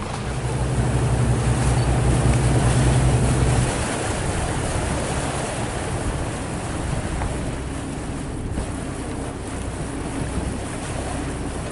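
Boat engine running under wind and sea noise. The engine is louder for the first three to four seconds, then drops back to a lower steady level.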